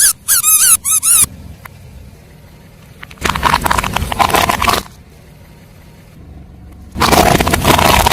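Several short, wavering, high squeaks in the first second. Then two long crackling crunches, each about one and a half to two seconds: objects being crushed under a car tyre.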